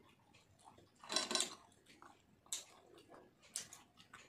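Eating sounds: fingers mixing wet panta bhat rice on a steel plate and mouth smacks of chewing, as a few short wet clicks, the loudest about a second in.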